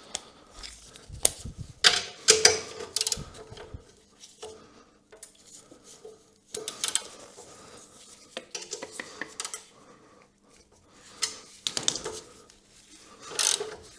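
Metal hand tools and sockets clinking and clattering in irregular bursts of sharp clicks and knocks.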